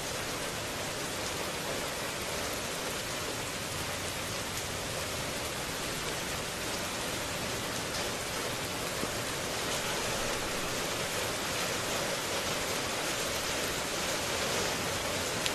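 Steady heavy rain, an even hiss with a few sharper drop ticks near the end.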